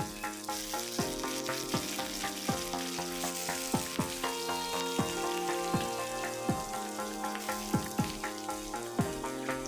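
Fish pieces frying in hot oil in a metal wok, with a steady sizzle. Background music with a regular beat plays along with it.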